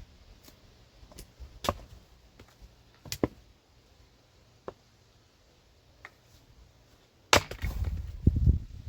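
Axe chopping firewood: a series of sharp wooden knocks a second or so apart, then a harder strike near the end followed by about a second of heavy clattering thumps.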